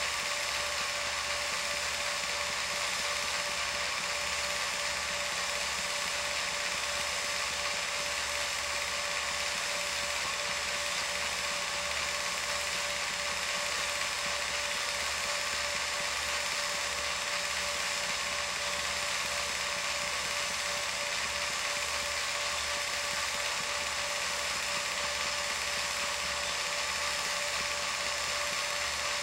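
Film projector running steadily: the mechanical whirr of the film transport and motor, with a fast low pulsing, a steady whine and a constant hiss.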